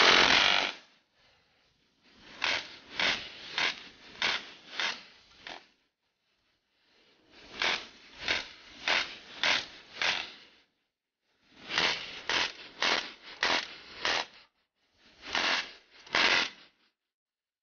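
Bursts of fire from a GSMG pneumatic BB machine gun shooting steel BBs: strings of sharp pops at about two a second, around six to a burst, with short pauses between bursts.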